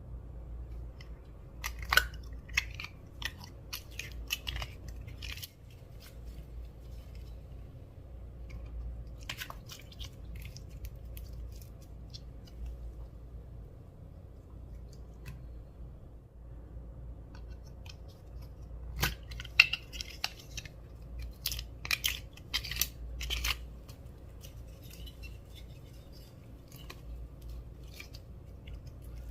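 Clear slime being worked by hand, giving clusters of sharp sticky clicks and crackles, with the busiest run about two-thirds of the way through.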